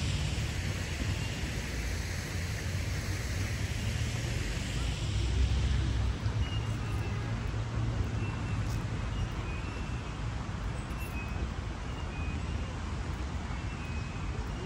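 A steady low road-traffic rumble. From about six seconds in, faint short high-pitched peeps repeat.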